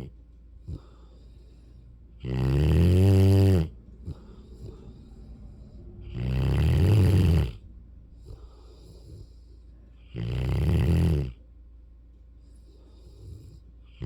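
A sleeping mastiff-rottweiler puppy snoring deeply, three loud snores each about a second and a half long, coming roughly every four seconds.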